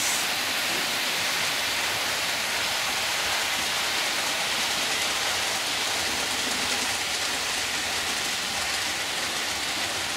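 Model trains running on the layout's track: a steady, even rushing rattle of wheels rolling over the rails.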